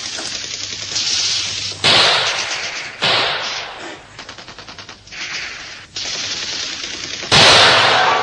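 Submachine gun firing rapid automatic bursts, several in a row with brief breaks. The loudest burst starts near the end.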